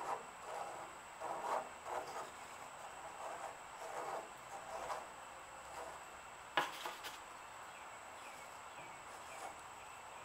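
Paintbrush rubbing and dabbing on a thickly textured acrylic canvas in a run of short strokes, followed by a single sharp click about two-thirds of the way in.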